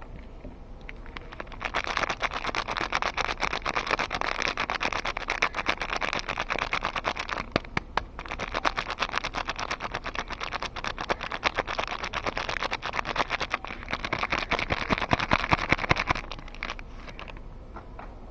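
Packaging of a soap bar crinkling and crackling as it is unwrapped by hand. The rapid crackle starts about a second and a half in, pauses briefly midway and dies away shortly before the end.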